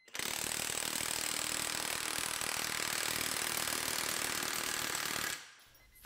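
Milwaukee 2767-20 M18 half-inch high-torque impact wrench hammering continuously under load on a bolt for about five seconds, then stopping abruptly.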